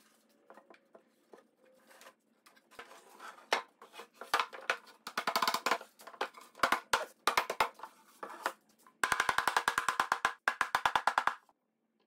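Pine panels of a night stand being fitted and knocked together onto dowel pins: scattered wooden knocks and clicks that grow busier, then a fast run of sharp knocks lasting about two seconds near the end.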